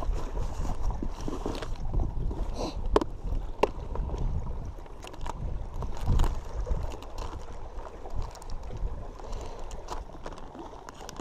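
Wind buffeting the camera microphone in an uneven low rumble, with rustling and a few sharp clicks as a plastic tackle box and a plastic bait bag are handled.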